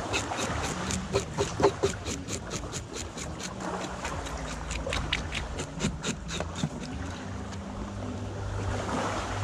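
A knife blade scraping the scales off a fish on a plastic cooler lid, in quick regular strokes about four or five a second, which die away about seven seconds in.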